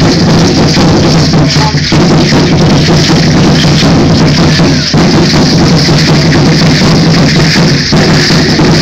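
Aztec dance drumming: large drums beating a steady driving rhythm with rattles shaking along, so loud that it overloads the phone's microphone. The beat drops out briefly about every three seconds.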